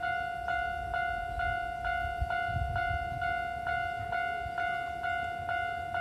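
Japanese railway level-crossing warning bell ringing its repeated electronic 'kan-kan' tone, about two strikes a second, warning that a train is approaching.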